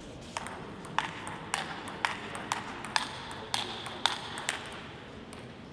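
Table tennis rally: the ball clicks sharply off bats and table about twice a second, nine hits in all, and the rally stops about four and a half seconds in.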